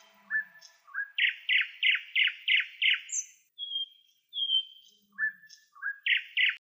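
A songbird singing. Two short rising notes lead into a quick run of six clear descending notes, followed by two drawn-out whistles. The phrase starts again near the end and cuts off abruptly.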